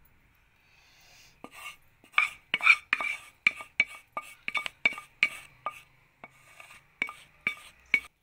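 Wooden spatula knocking and scraping against a cake plate while spreading a thick chocolate-cherry topping: a run of sharp knocks, roughly three a second, each with a brief ring, starting about a second and a half in.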